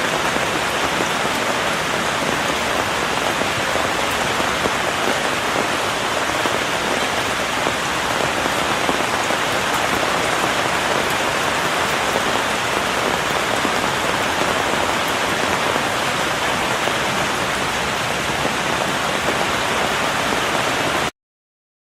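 Rain falling on a patio umbrella: a dense, steady spatter of drops that stops abruptly near the end.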